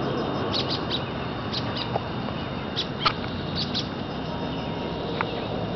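Outdoor ambience: a steady hiss with about ten short, high chirps or ticks scattered through it, and a faint steady high hum.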